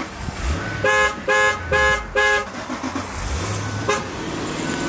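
Vehicle horn honked four quick times in a row, each blast short and evenly spaced, then one brief tap about a second and a half later.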